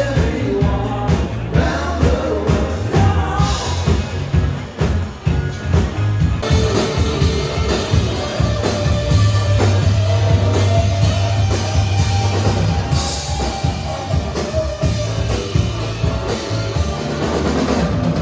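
Live band playing rock-and-roll: a singer over bass, guitar and a drum kit keeping a steady beat.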